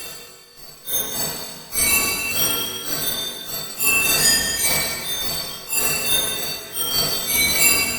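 Music of bright, piano-like tones: many short, high notes sounding in dense, shimmering clusters. It dips briefly near the start, then swells again about every one to two seconds.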